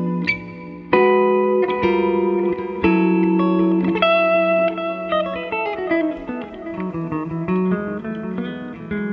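Electric guitar played through an EarthQuaker Devices Dispatch Master delay/reverb pedal, with every knob at noon, into a Quilter Mini 101 amp and closed-back 1x12 cabinet. The picked notes ring on with delay repeats and reverb. Midway a run of notes steps down in pitch, then climbs back up near the end.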